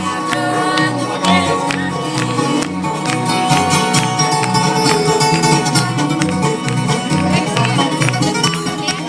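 Bluegrass band playing live: an instrumental passage of picked string instruments over a steady bass pulse, about two beats a second.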